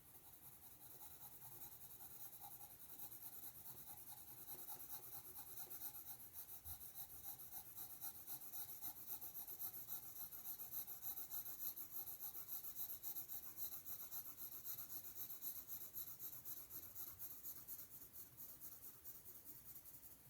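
Coloured pencil scratching across paper in quick, even back-and-forth shading strokes.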